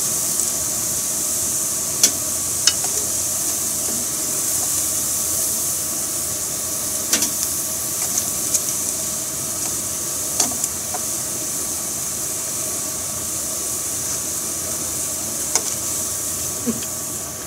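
Vegetable kakiage deep-frying in hot oil in a frying pan: a steady high sizzle. A few sharp clicks come from the chopsticks against the pan as pieces are turned and lifted out.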